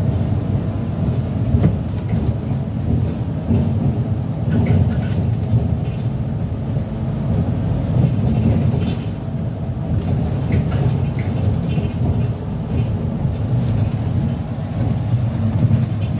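City bus running along the road, heard from inside near the front: a steady low engine and road rumble with scattered light rattles from the bus body.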